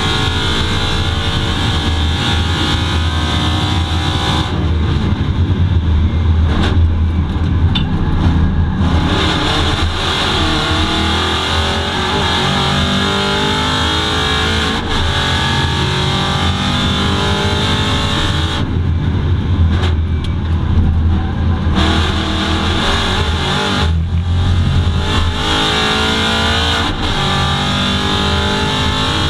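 Aston Martin V8 Vantage GT4 race car's V8 engine heard from inside the cockpit at speed, its pitch climbing again and again through the gears. Twice, about five seconds in and again about nineteen seconds in, the sound turns duller for a few seconds.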